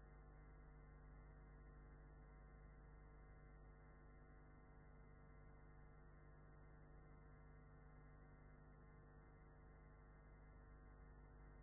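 Near silence: a faint, steady electrical hum and nothing else.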